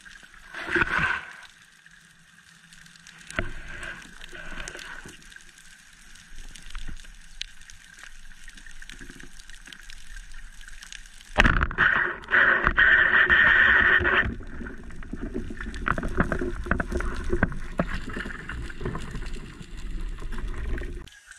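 Underwater sound of a band speargun firing: a sudden loud crack about halfway through, followed by about three seconds of dense rushing noise, then continuous scraping and clicking as the shaft's line runs out. Before the shot there is only quiet water noise with one brief burst near the start.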